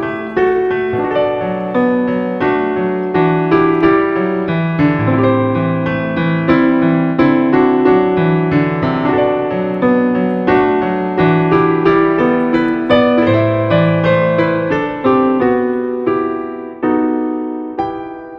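Background piano music, a slow melody of notes with chords that fades out near the end.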